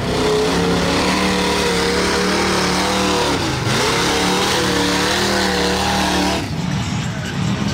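Off-road vehicle's engine held at high revs, its pitch dipping briefly about halfway through and climbing back, then cutting off near the end.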